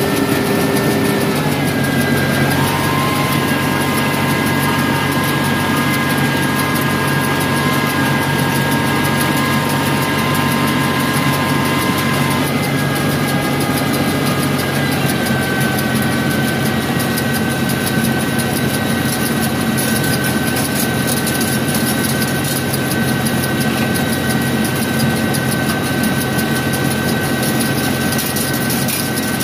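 Tractor engine running with a Hesston 745 4x5 round baler working behind it, driven through the PTO shaft while baling hay. It makes a loud, steady mechanical din with steady whining tones that shift a few times.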